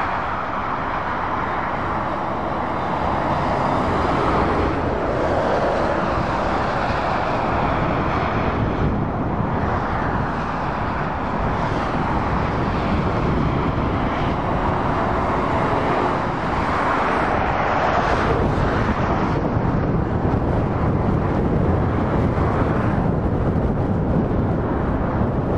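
Road traffic: lorries and cars passing, a continuous mix of tyre noise and diesel engines that swells and eases as vehicles come close and go by.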